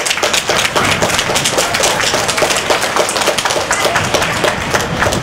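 A small crowd applauding, many hands clapping irregularly, right after a ribbon is cut.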